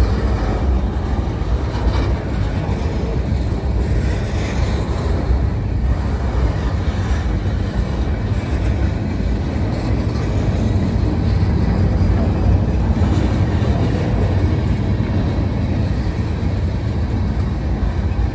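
Freight train cars rolling past, a steady low rumble of steel wheels on rail.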